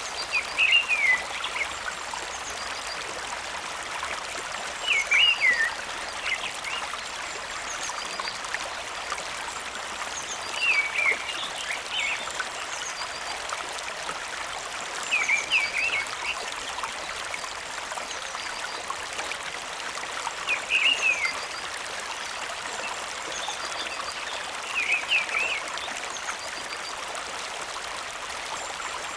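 Steady running, trickling water, with a short burst of chirping calls recurring about every five seconds.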